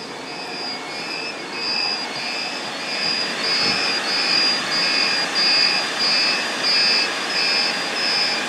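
Electronic alarm beeps repeating about twice a second from datacenter equipment that has lost power on one feed, over the steady rush of server and cooling fans. The beeping grows louder toward the middle.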